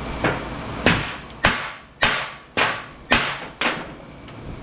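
Wedge hammer striking a metal light-fixture transformer, about seven hard blows roughly half a second apart, each with a short metallic ring, cracking the transformer apart at its welds.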